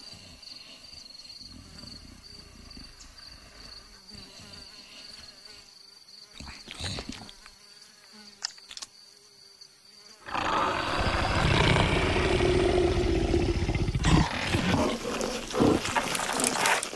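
A faint steady high buzz, then about ten seconds in a loud, rough animal roar like a big cat's starts suddenly and carries on, with a few sharp peaks.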